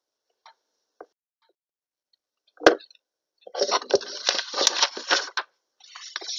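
A single sharp knock, then about two seconds of rustling noise in a small room.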